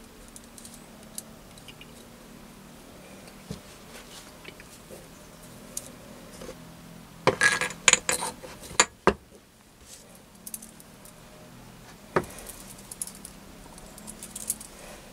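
Light metallic clinks and handling of small steel parts as a greased tapered roller bearing on its shaft is fitted into the milling spindle housing. A quick run of sharp clinks about halfway through is the loudest, with one more click a few seconds later.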